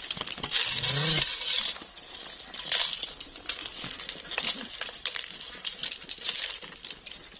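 Domestic pigeons flapping and fluttering their wings in several short bursts as they are caught and handled by hand, with light scuffling on the straw.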